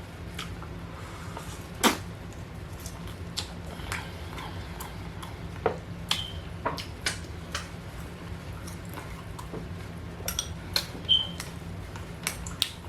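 Knife and fork clicking and tapping against a plate: scattered light clicks, a couple of them with a short ring, over a steady low hum.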